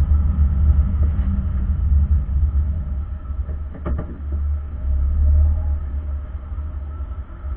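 Steady low rumble of a car heard from inside the cabin through a dashcam's microphone, with a short click about four seconds in.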